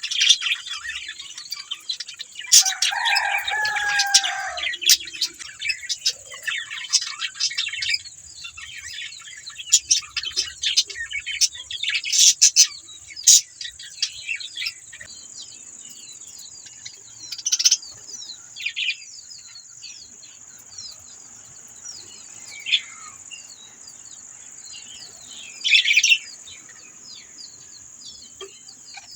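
A flock of budgerigars chattering with many quick chirps and a few louder calls, busy for the first half and thinning out later. A steady high hiss runs underneath.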